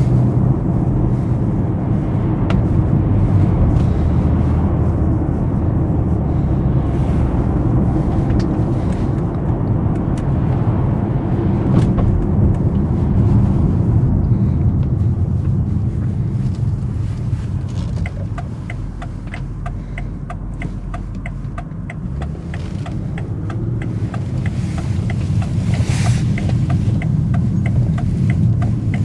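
BMW 750i's 4.4-litre twin-turbo V8 running while driving at town speeds: a steady low drone that eases off for a few seconds past the middle, then builds again.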